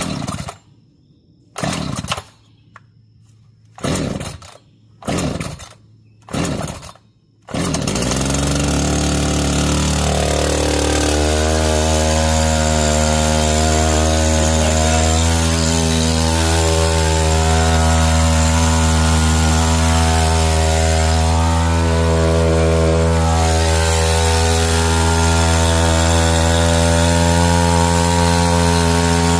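Echo CS-590 Timber Wolf two-stroke chainsaw being pull-started: five short bursts of cranking on the starter cord, then the engine catches about seven seconds in. After a brief change in pitch it settles into a steady run, ending with a sudden cut.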